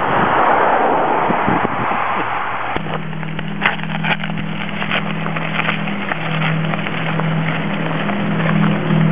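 A rushing noise, then a low steady motor hum that starts suddenly about three seconds in and keeps running, pulsing in strength, with a few clicks soon after it starts.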